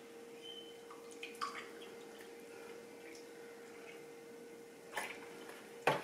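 White vinegar being poured from a plastic bottle into a plastic measuring cup: a faint trickle of liquid with a few small clicks, over a faint steady hum. Two light knocks near the end.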